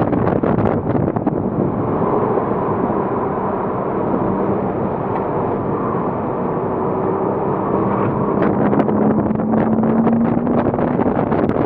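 2007 Porsche Cayman S flat-six engine running at speed on track, under steady tyre, road and wind noise. The engine note rises slowly for a few seconds near the end as the car accelerates.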